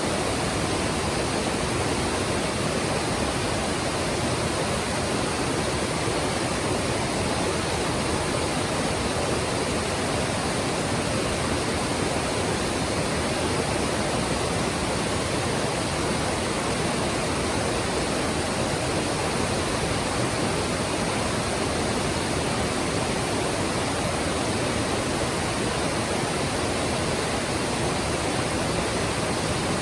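Mountain stream rushing over rocks: a steady, unbroken sound of running water.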